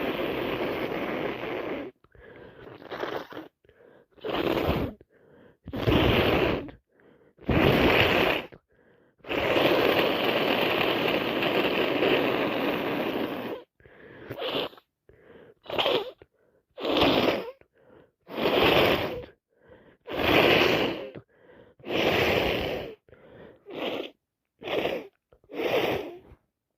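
A congested nose, blocked by a heavy cold, blown hard and repeatedly into a handkerchief held to it: a long blow at the start, then a run of separate blows of varying length, one of them lasting about four seconds, and shorter quick ones near the end.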